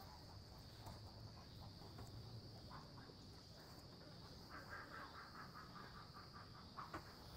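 Faint steady insect drone, one high unbroken tone, with a rapid pulsing trill of about eight pulses a second for a second or two about halfway through, and a few soft clicks.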